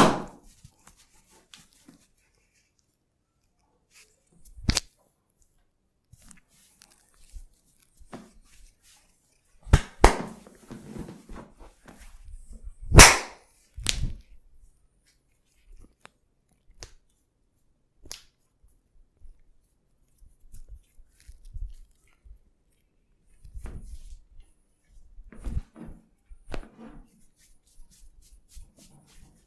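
Hands slapping and patting on skin during a massage: single sharp slaps several seconds apart, a quick pair about ten seconds in and the loudest about thirteen seconds in, with soft rustling of hands and cloth between.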